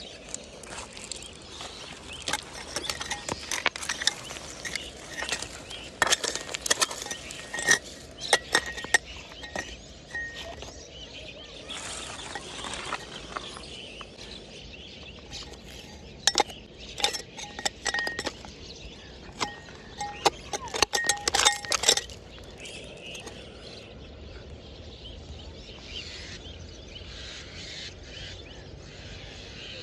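Steel blade of a hand digging tool striking and prying at stones in a hard dirt bank: sharp metallic clinks that ring briefly. They come in two flurries, with softer gritty scraping between them.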